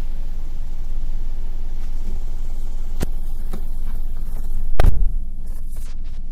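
A Maruti Suzuki car's engine idling steadily, now warmed up after a cold start, heard from inside the cabin. Two short clicks come around the middle, and a loud thump comes about five seconds in.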